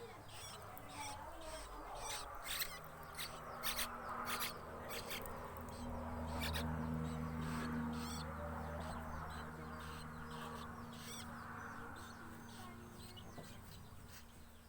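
Young fledgling bird giving short, high, repeated begging chirps while being hand-fed banana. Under it a low steady hum swells through the middle and fades out.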